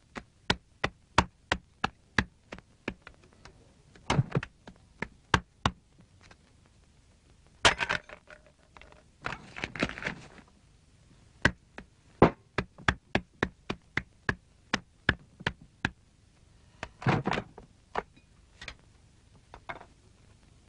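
A long run of sharp knocks or taps, about two or three a second and unevenly spaced, broken by a few short rustling bursts.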